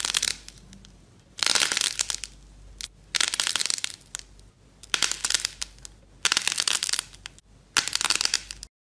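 Crunchy clay balls with a black shell and soft coloured filling being squeezed and cracked open by hand: six crackling crunches, each under a second, about a second and a half apart.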